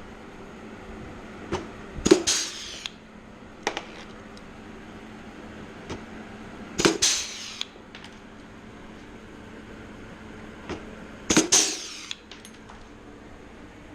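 Blind rivets being set with a rivet puller in aluminium flaperon skin: three sharp snaps, each with a short hiss, about every four to five seconds, with light clicks in between as the next rivet goes in.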